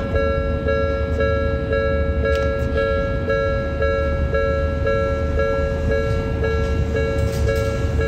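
Japanese level-crossing warning bell ringing: an electronic two-tone clang repeating about twice a second, over the low rumble of a Toden Arakawa Line tram at the crossing.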